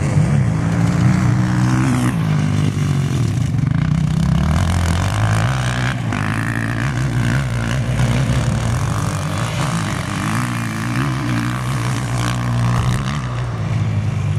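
Dirt bike engines revving up and down as they are ridden round a motocross track, the engine pitch repeatedly rising with the throttle and dropping back.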